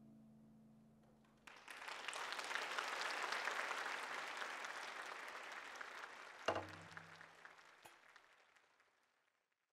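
The last plucked notes of a koto die away, then an audience breaks into applause about a second and a half in. The applause swells and then fades out near the end, with a single low thump partway through.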